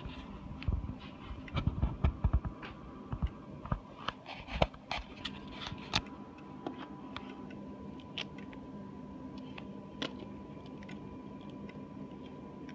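Scattered light clicks and knocks of handling, thickest in the first five seconds, over a steady faint high-pitched electrical whine and a low hum.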